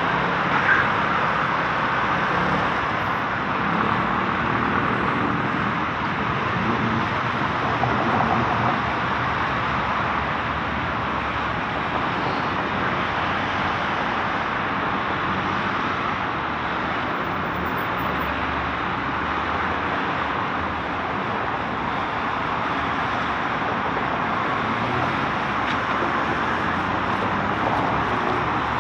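Steady road traffic: a continuous wash of passing cars and tyre noise, with small swells as vehicles go by.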